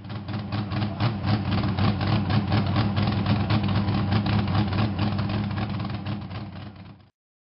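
Engine idling with a rapid, even exhaust pulse. It fades in at the start and tapers off, stopping shortly before the end.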